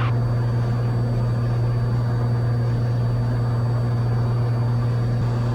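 Cessna 182 engine and propeller droning steadily in level cruise, heard inside the cabin as an even, unchanging low hum.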